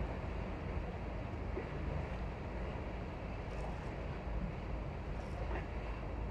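Steady low outdoor rumble with a faint constant hum beneath it, and a few faint ticks.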